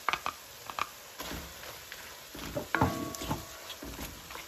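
Light clicks and taps of a cooking utensil against a pan while stir-frying chicken, with a short ringing clink about three seconds in.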